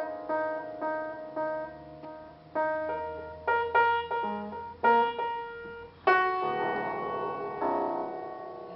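Piano keys pressed at uneven intervals, single notes and small clusters that each ring and fade, as a baby parrot walks on the keyboard. A louder cluster of notes sounds about six seconds in.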